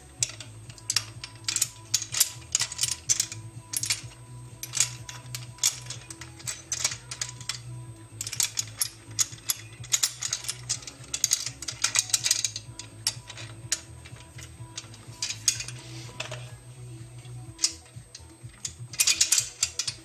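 Quick-release seatpost clamp of an aluminium bicycle rack clicking and ratcheting in irregular bursts as its parts are turned and fitted together, over quiet background music.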